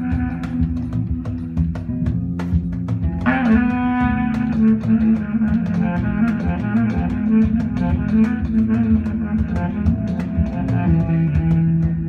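A live band playing: plucked-string melody, likely the oud, over bass guitar and a regular drum-kit beat. A wavering held melody line comes in about three seconds in.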